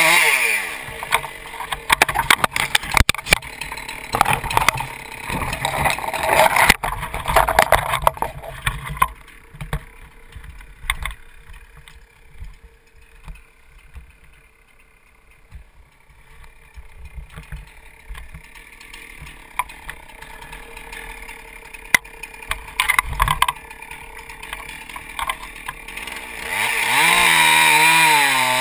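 Two-stroke chainsaw dropping from a cut to idle, then idling for a long stretch while loud knocks and cracks sound in the first several seconds; near the end the saw is throttled up again, its pitch rising back to full cutting speed.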